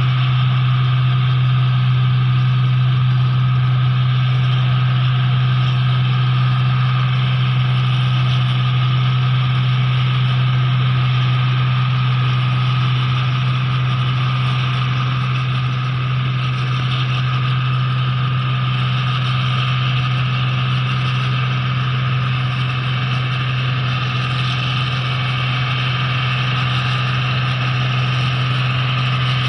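New Holland combine harvester running steadily as it cuts rice: an unchanging low engine hum under a constant higher machinery hiss.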